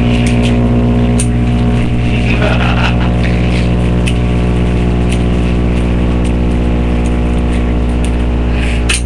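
Loud, steady electrical buzz with many even harmonics, a mains hum on the recording, with a few faint clicks.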